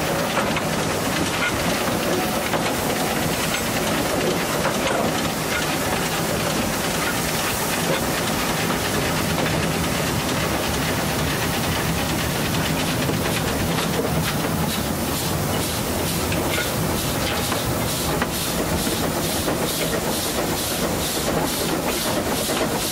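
Narrow-gauge steam locomotive ÖBB 298.52 hauling a train, heard from aboard: a steady rush of steam and running noise. From a little past the middle, a regular beat of about three a second comes through.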